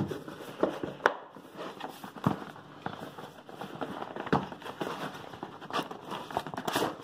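Cardboard retail box being handled and turned over in the hands: scattered light knocks, scrapes and rustles of the card.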